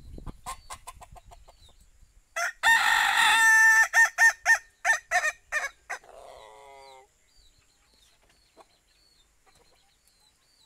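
Rooster crowing about two seconds in, then a quick run of short clucking calls and a weaker falling call.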